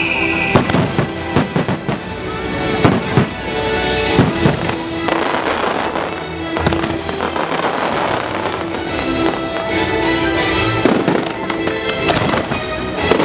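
Fireworks shells bursting over orchestral show music: a quick run of sharp bangs in the first few seconds, then more scattered bangs and crackling.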